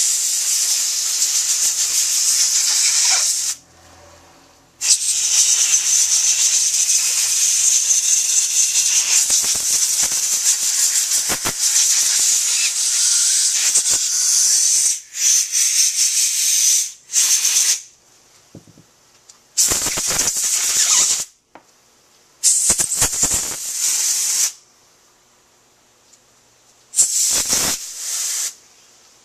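Compressed-air blow gun hissing as it blows off and clears small carburetor parts (jets, screws and float bowl) after a cleaning dip and water rinse. A blast of a few seconds, a short pause, a long blast of about ten seconds, then about five short bursts with gaps between them.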